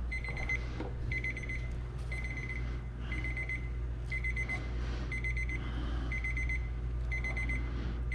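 Kitchen timer alarm beeping: short bursts of rapid high beeps, about one burst a second, over a steady low hum. It marks the end of the timer set for the boiling mac-and-cheese pasta.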